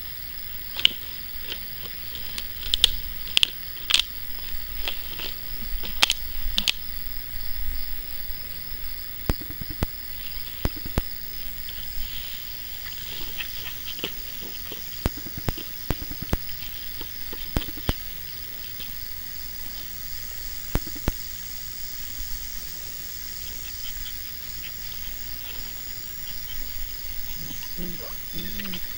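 A steady, high-pitched insect chorus, with scattered sharp clicks and knocks from puppies scuffling and wrestling in a wire pen on grass.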